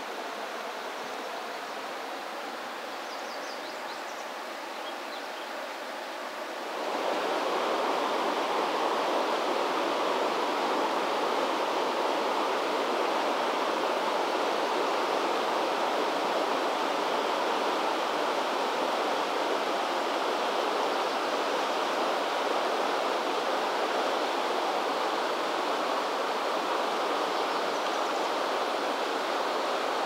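Steady rush of river current, getting suddenly louder and fuller about seven seconds in.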